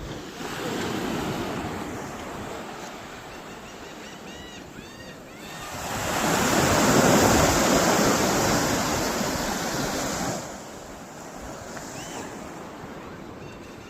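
Waves washing in with wind on the microphone: a rushing noise that swells briefly about a second in, then swells much louder for about four seconds before dropping off sharply.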